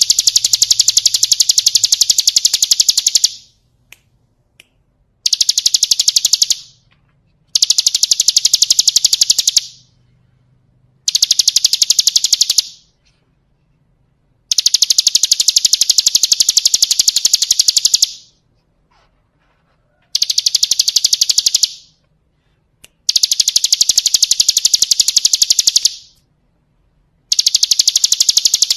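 Bar-winged prinia (ciblek kristal) singing a rapid, rattling 'ngebren' trill: fast high notes run together in bursts of one and a half to four seconds, about eight of them, each broken off by a pause of a second or two.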